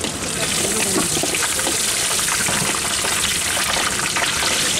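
Peanuts frying in hot oil in a large aluminium kadhai: a steady sizzle full of fine crackling.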